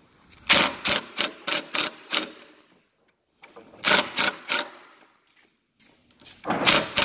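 Sharp clicks and knocks from deadbolt latch hardware and screws being handled and screwed into a door: a quick run of about six near the start, a few more about four seconds in, and another cluster near the end.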